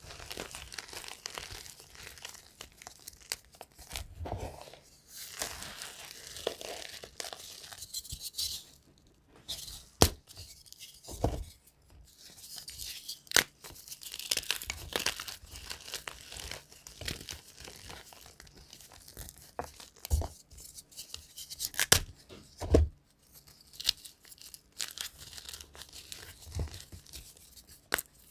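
Hands crushing dyed gym chalk blocks in loose chalk powder: a dry, crackly crumbling with sharp snaps here and there as pieces break apart.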